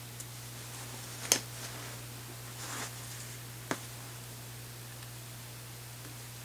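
Handling noise from rifle parts or tools: three sharp clicks, the loudest about a second in and another near the middle, and a brief rustle between them, over a steady low hum.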